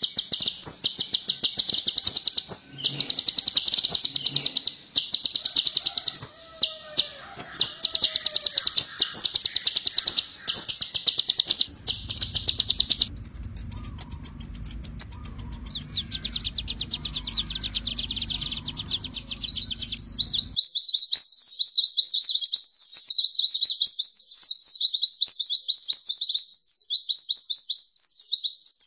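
A van Hasselt's sunbird (kolibri ninja) singing a long, fast, high-pitched song of rapid trills and sharp repeated notes. From about two-thirds of the way in, the song shifts to quick rising and falling chips. A low hum sits under the song from about 12 s to about 20 s.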